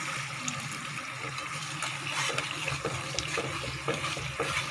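Watery ground-onion paste poured into hot masala in a steel pan, with a steady pouring and sizzling hiss. From about two seconds in, a metal ladle stirs, scraping and clicking against the pan.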